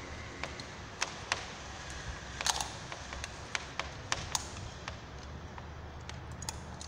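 A dozen or so small, sharp, irregular clicks and taps as an electrical tester's probe is worked into the holes of a wall socket, loudest about two and a half seconds in, over a steady low hum.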